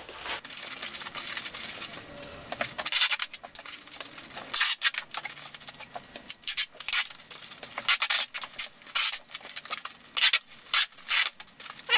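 Thin foam packing sheet rustling and crinkling as it is wrapped around a metal part by hand, a run of irregular short crackles and scrapes, with packing tape being pulled off a roll to hold it.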